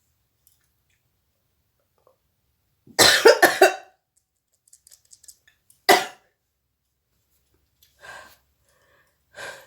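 A woman sneezing: a quick run of loud sneezes about three seconds in, then one sharp sneeze about six seconds in, followed by two faint breaths or sniffs.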